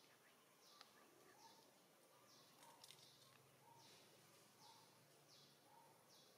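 Near silence: faint outdoor background with a short, high call repeating about once a second, each with a fainter lower chirp.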